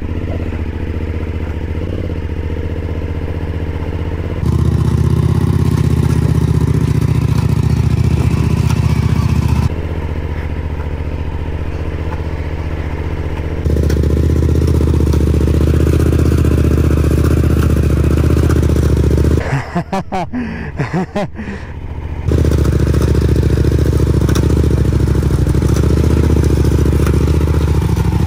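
Loaded Suzuki adventure motorcycle's engine held at steady high revs while the rear wheel spins in deep sand, the bike bogged down and being pushed. The engine note steps up and down in loudness a few times and drops away briefly about twenty seconds in.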